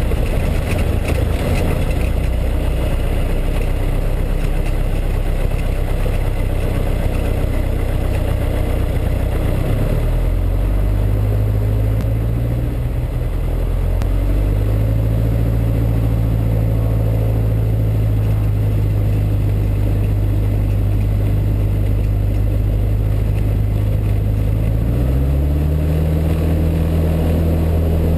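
Piper PA-18 Super Cub's 180 hp four-cylinder Lycoming engine and propeller running, heard from inside the cockpit while the aircraft taxis on grass. The engine note steps up in pitch about ten seconds in and again near the end.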